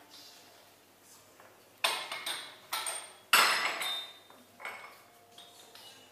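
Hard objects clattering and clinking: a few sharp knocks in quick succession about two seconds in, the loudest followed by a brief ring.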